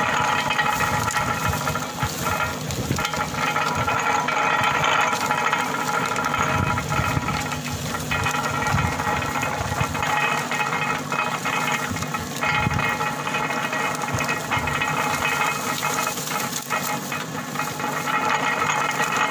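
Belt-driven sugarcane crusher running steadily while cane stalks are fed through its rollers, with the drone of the engine or motor that drives it and occasional cracking clicks from the cane.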